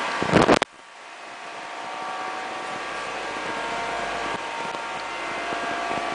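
Suzuki Burgman 125 scooter's single-cylinder engine running steadily through a Roncar aftermarket exhaust. It is preceded by a brief loud clatter that cuts off abruptly about half a second in; the steady engine sound then swells back up over the next two seconds.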